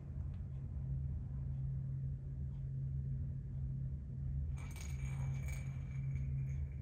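A steady low hum, with a brief burst of light metallic jingling and clinking about four and a half seconds in that lasts about a second.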